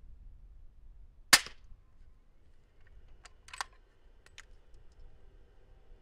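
A single suppressed shot from an 8-inch 300 Blackout bolt-action rifle firing 200-grain subsonic rounds through a Thunder Beast 338SR suppressor: one sharp crack about a second in, which measures about 115 dB at the shooter's ear. A few lighter metallic clicks of the bolt being worked follow a couple of seconds later.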